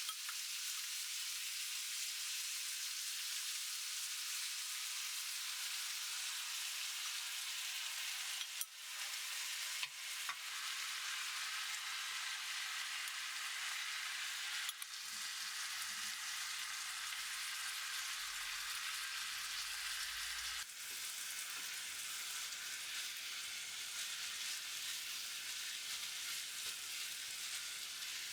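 Pepper rice frying in a hot pan: a steady sizzle, with a few brief utensil clicks partway through.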